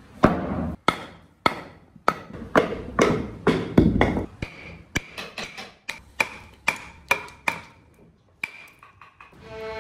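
Steel chisel driven by hammer blows, chopping chunks out of a block of Fokienia wood: a steady run of sharp blows, about two a second, several with a short metallic ring, stopping a couple of seconds before the end.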